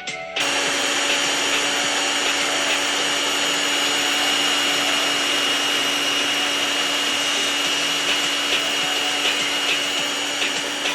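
Small electric kitchen appliance motor switching on suddenly and running steadily with a constant whine, whipping the coffee mixture.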